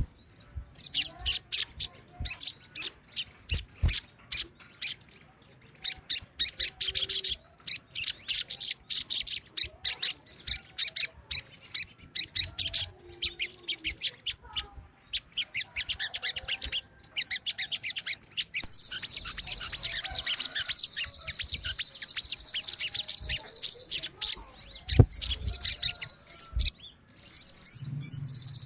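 A colony of sogon birds (little spiderhunters) calling continuously: a fast stream of sharp, high chirps that thickens into a denser, louder chorus of trills about two-thirds through. A few faint low thumps sound underneath.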